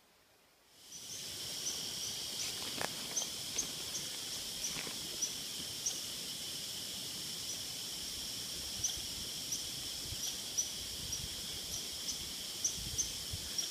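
Steady high-pitched insect trilling, with short high chips scattered through it; it begins abruptly under a second in, after near silence.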